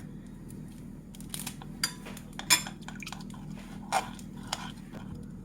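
A spoon clinking irregularly against a bowl, about six separate clinks, as honey is spooned into and mixed with onion juice.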